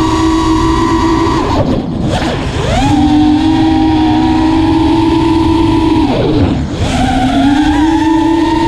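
Armattan Rooster FPV quadcopter's brushless motors and propellers whining, heard from the onboard camera with wind rush beneath. The pitch drops and climbs back twice, about one and a half seconds in and again about six seconds in, as the throttle is cut and reapplied. The owner judges it free of the strong vibration it used to have above mid throttle.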